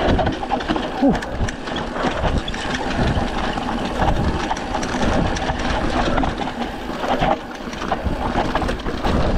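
Mountain bike ridden fast over a dirt singletrack: tyres rolling over dirt and leaves, with the bike rattling and knocking over bumps and wind on the microphone.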